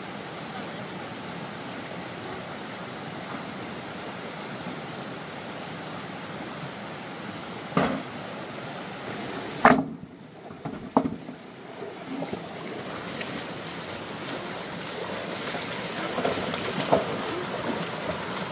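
Steady rushing water noise with a few sharp knocks, the loudest about ten seconds in, after which the rushing briefly drops away.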